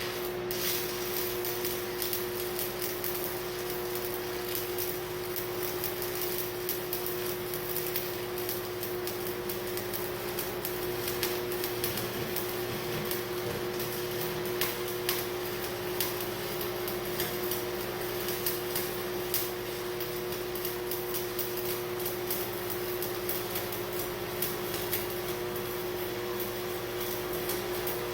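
Arc welding a broken joint on loader square tubing: a continuous crackle of the arc laying a bead, over a steady hum.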